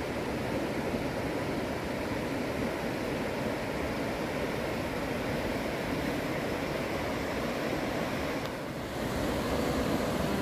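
Steady rushing of a swollen, muddy river in flood, its fast current tearing past the bank.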